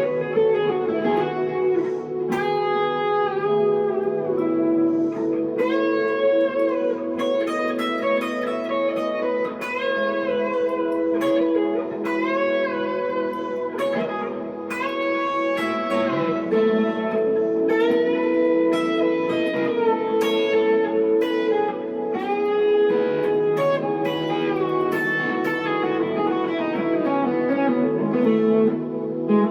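Solo electric guitar playing, a 1963 Fender Telecaster through a tube amp: picked melodic lines with string bends over low notes that ring on underneath.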